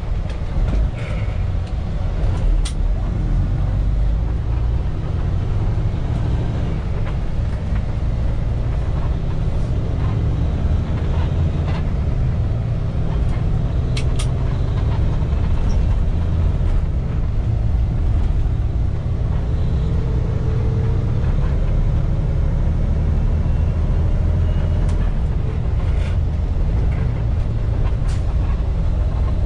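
Kenworth T680 semi truck on the road, heard from inside the cab: a steady low engine and road drone whose pitch drifts a little up and down, with a few short sharp clicks.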